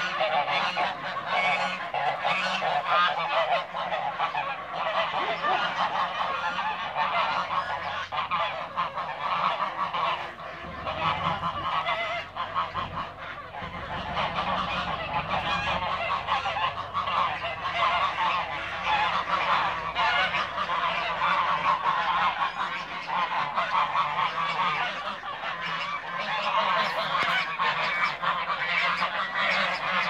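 A flock of domestic geese, Toulouse geese among them, honking continuously, with many calls overlapping.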